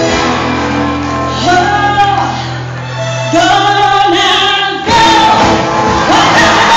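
Live band with several singers performing an amplified song. A held low bass note sits under the voices until about five seconds in, when the full band comes in louder.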